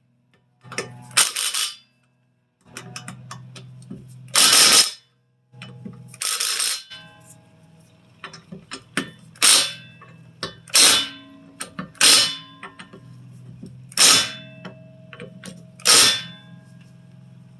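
Impact wrench hammering lug nuts tight on a car wheel, in about eight short bursts a second or two apart, over a steady low hum.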